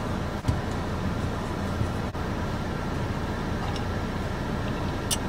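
Steady low rumble of car road noise heard from inside the cabin, with one brief click near the end.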